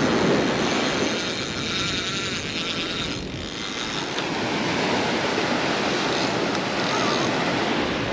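Steady rushing noise of surf breaking on the beach, with wind blowing on the microphone.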